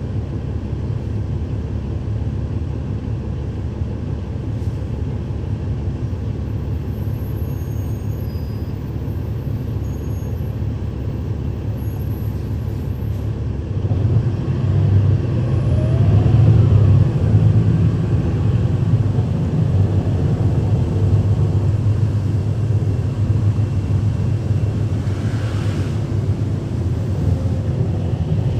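Cummins ISL9 diesel engine of a 2012 NABI 416.15 transit bus, heard from inside the cabin, running with a steady low drone, then getting louder about halfway through as it revs up with a rising whine. A short hiss comes near the end.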